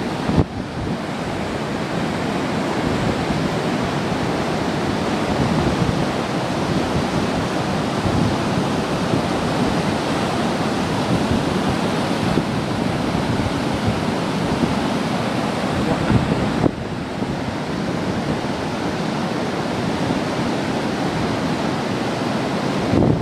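Brown river water pouring over a low weir dam and churning in the turbulent white water below it: a steady, loud rush.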